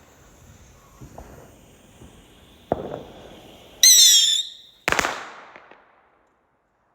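Fireworks going off: a sharp bang near three seconds in, then a loud, wavering whistle from a whistling firework about a second later, followed straight after by a loud bang that dies away.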